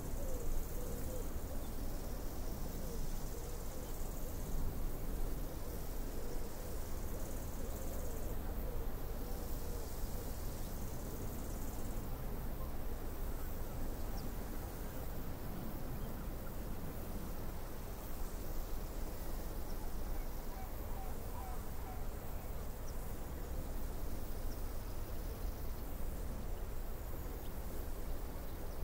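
Ocean surf breaking and washing up the beach, a steady, even rush of water noise.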